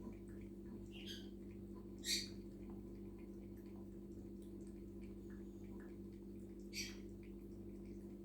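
A few brief high-pitched squeaks from a small animal, the loudest about two seconds in and another near seven seconds, over a steady low electrical hum.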